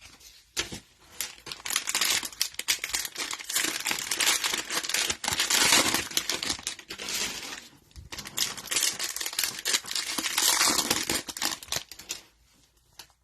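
Cellophane wrapper of a trading-card cello pack crinkling and tearing as it is ripped open and pulled off the cards. The crackling runs for about ten seconds, with a brief pause partway, and stops shortly before the end.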